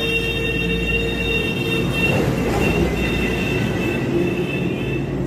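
John Deere 3036 EN mini tractor's diesel engine running steadily, with a thin high-pitched whine over it for most of the stretch.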